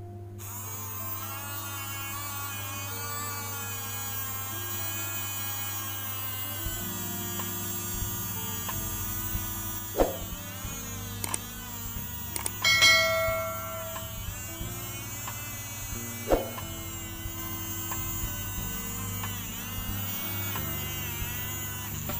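Small DC motor of a homemade smoke machine running with a buzzing whine that wavers in pitch, starting just after the start and stopping near the end. A few knocks and one ringing metallic clink come about halfway through, with background music underneath.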